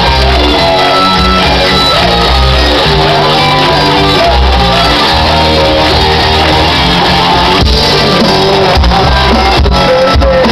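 Live rock band playing loud, heard from the audience at a small club show.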